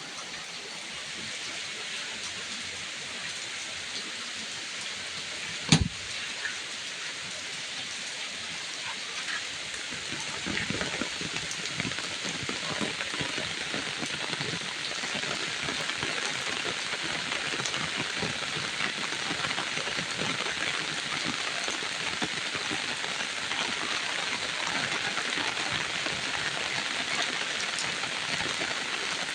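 Steady rain falling, a dense even hiss of drops that grows heavier and louder about ten seconds in. A single sharp knock sounds about six seconds in.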